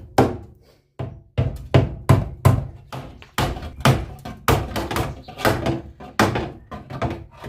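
Hammer blows on the Trabant 601's steel front panel, backed by a second hammer held behind as a dolly to straighten the bent corner: a quick run of sharp metallic knocks, about three a second, with a brief pause about a second in.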